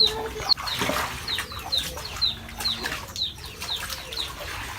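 Birds chirping: a run of short, high chirps that each drop in pitch, about two a second.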